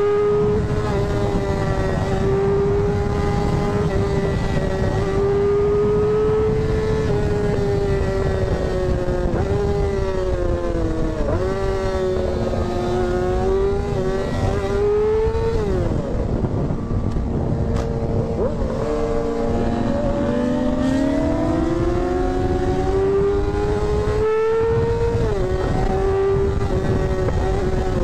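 Racing engines held at high revs, one strong engine note that drops and climbs again at gear changes about eleven, fifteen and twenty-five seconds in. A second, lower engine note rises alongside it through the middle, as another vehicle runs close by.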